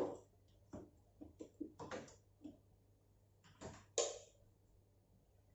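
Scattered light clicks and knocks from small washing-machine parts being handled by hand, with one sharper knock about four seconds in.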